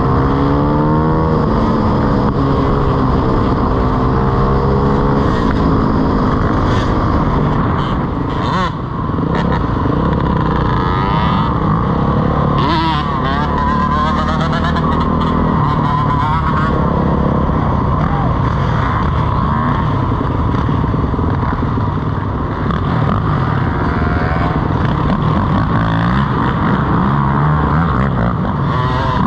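Dirt bike engines running at speed, the nearest bike loudest, its pitch rising and falling again and again as the throttle opens and closes through the gears, with other dirt bikes revving around it.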